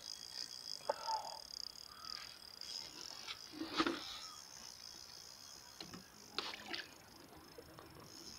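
Scattered light knocks and clicks of handling on a small inflatable boat, the loudest a dull thump about four seconds in, over a steady high-pitched hiss.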